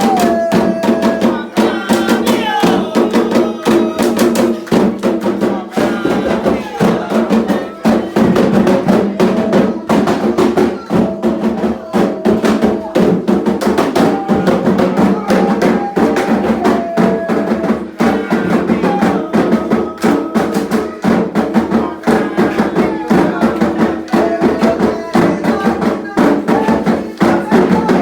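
Candomblé atabaque drums playing a fast, dense rhythm for Oxumarê, with voices singing over them.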